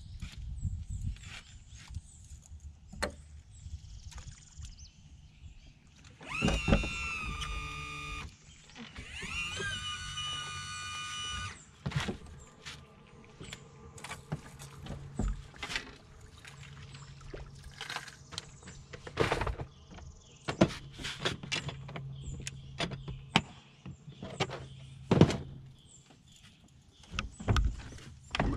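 Electric trolling motor whining up to speed and holding, twice, each run about two seconds, with scattered sharp knocks on the metal boat's hull throughout.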